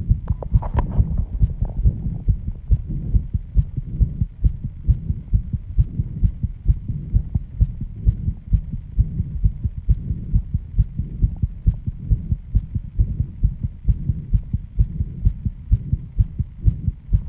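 Human heartbeat racing after intense exercise: fast, regular low thumps at about two beats a second, around 134 beats per minute.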